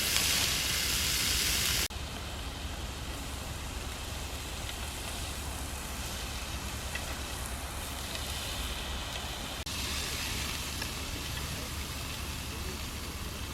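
Pork neck meat sizzling on a camping grill, a steady crackling hiss. It is louder for about the first two seconds, then drops suddenly to a quieter sizzle.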